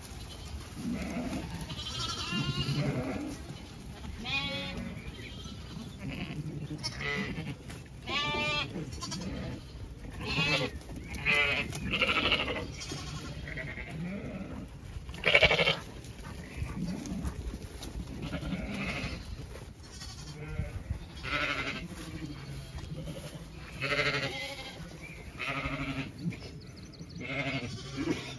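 Zwartbles ewes and lambs bleating as the flock is moved along, a run of separate calls every second or two, some high and quavering, others deeper.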